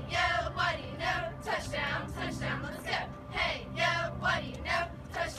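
A cheerleading squad shouting a cheer in unison, one loud syllable about every half second.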